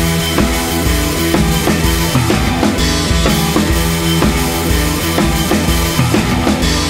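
Background music with a drum kit playing a steady beat under sustained instrument notes.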